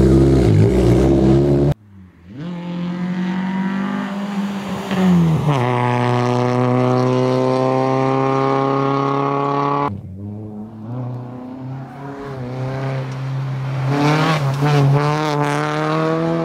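VW Gol N2 rally car's engine running hard on a tarmac stage in a few edited shots that cut off abruptly: a loud burst at first, then the engine held at high, steady revs, then the revs rising and dipping repeatedly near the end as the car takes a hairpin.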